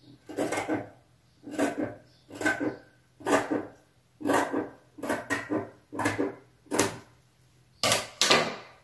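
Scissors snipping through cotton fabric to trim a crooked edge straight: about ten short cuts at a steady pace of roughly one a second.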